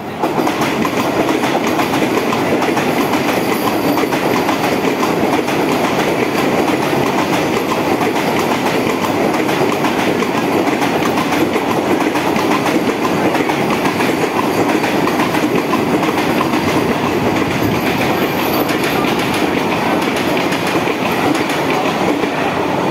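Vande Bharat Express electric multiple-unit train running through a station at speed, passing right by the platform. A loud, steady rush of wheels on rail comes in suddenly as the front reaches the platform and holds without letting up while the coaches stream past.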